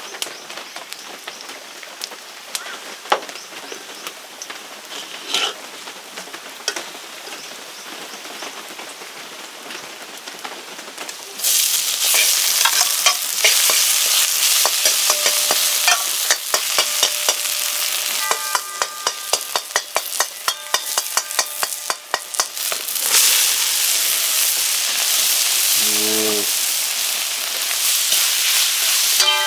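Food hits a hot pan about a third of the way in and sizzles loudly, then keeps frying while a spatula scrapes and clicks against the pan. Before that there is only a quieter hiss with scattered clicks.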